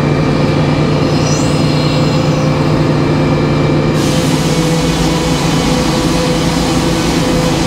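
A B. H. Payne 56-inch circular sawmill blade spins free over the steady drone of the mill's power unit, then about four seconds in starts cutting a board of yellow pine with a loud, even hiss. The new blade is running smoothly through the cut.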